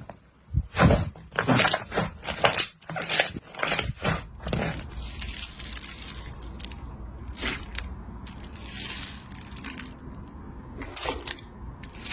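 Slime being pressed and squeezed by hand, a quick run of sharp crunching crackles for the first few seconds, then softer, hissy sticky squishes.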